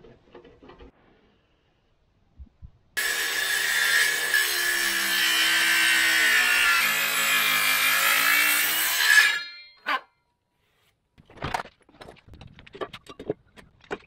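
DeWalt circular saw cutting across a rough-sawn timber beam for about six seconds, its motor pitch sagging under load mid-cut and recovering before it stops suddenly. Scattered light knocks and clicks follow near the end as the beam is handled.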